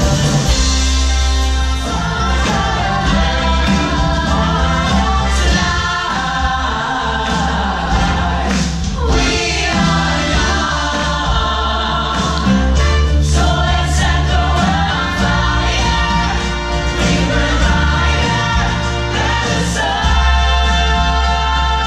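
A stage cast singing together as a chorus over band accompaniment, loud and steady with a strong bass.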